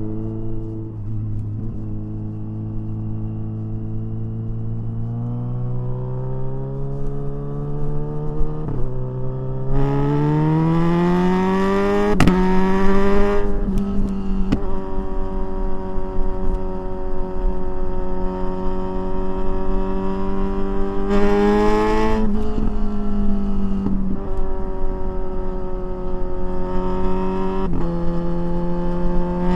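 Kawasaki Ninja 1000SX inline-four running on an aftermarket exhaust, heard from the rider's seat. It cruises, then climbs in pitch under acceleration, with sudden breaks in pitch where it changes gear. Wind rushes during the hardest acceleration.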